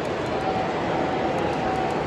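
Steady rolling rumble of model freight cars passing on a model railroad layout, mixed with the hiss of falling water from a water feature on the layout. A faint steady tone comes in about half a second in.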